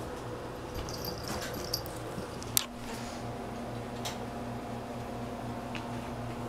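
A cat playing with a feather toy on a rug and wooden floor: scattered light clicks and rustles, the loudest a single sharp click about two and a half seconds in, over a steady low hum.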